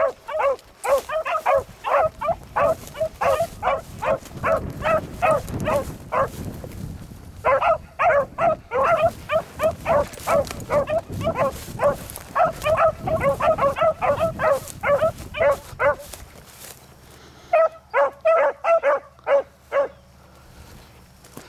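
Hunting beagles barking while driving game through brush, in quick, short yelps at about three a second. The barking breaks off briefly about six and a half seconds in, stops again around sixteen seconds, then comes back for a short final run.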